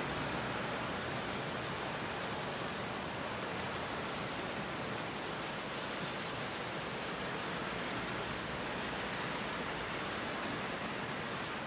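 Heavy rain falling steadily, an even, dense hiss with no breaks.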